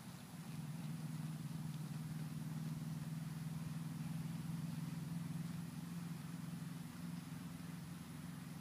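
A steady low drone like an engine running, growing louder about half a second in and easing slightly near the end.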